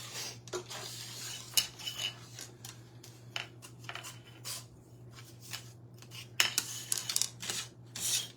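Many light clicks and clinks of small hard craft pieces being handled and set down on a work surface, some ringing briefly, with a steady low electrical hum underneath.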